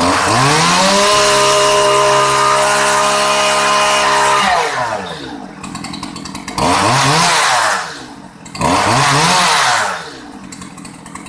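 Stihl MS211 C chainsaw's two-stroke engine snapped up to full throttle and held at a steady top speed for about four seconds, then dropped back to idle and was blipped up twice more, briefly. It holds full revs cleanly without stumbling, a sign of a healthy carburettor and engine.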